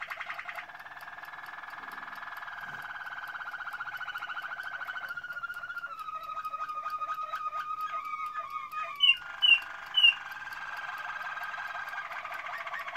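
Domestic canary singing a long unbroken song of fast trills and rolls that shift in pitch and pace every few seconds. Three short, loud, high notes ring out about nine to ten seconds in.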